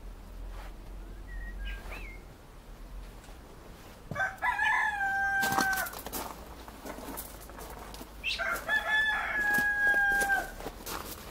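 A rooster crowing twice, a few seconds apart, each crow ending in a long held note.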